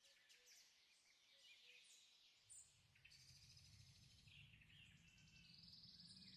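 Faint woodland birdsong: several small birds chirping and trilling. About two and a half seconds in, a low rumble joins it.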